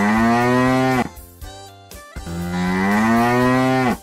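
Cow mooing: two long moos, the first ending about a second in and the second starting about two seconds in, each sliding up slightly in pitch and dropping away at the end.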